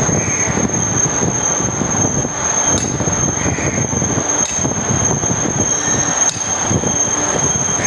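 Hammer striking a steel rod held against the hub of a panel AC condenser fan motor, driving the shaft out to replace the bearing: a few sharp metal-on-metal blows a second or two apart. Under them runs a loud, steady noise with a high whine.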